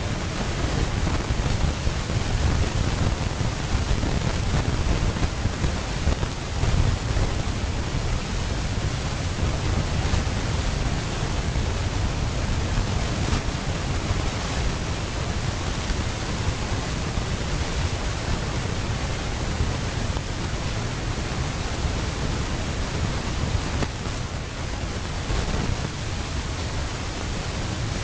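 Steady rushing noise with a heavy, uneven low rumble; no elephant calls or splashes stand out.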